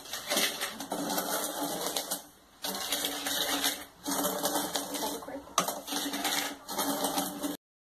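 Wooden spoon stirring dry crystal sugar in a metal saucepan: a gritty scraping rattle in four long strokes with short pauses, as the sugar starts to be melted for caramel. It cuts off abruptly near the end.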